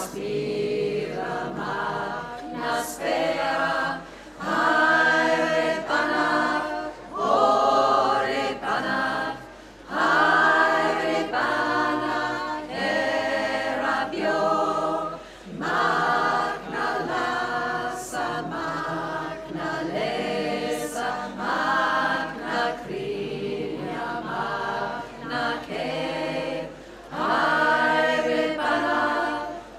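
Women's choir singing a cappella, in phrases with short breaks between them.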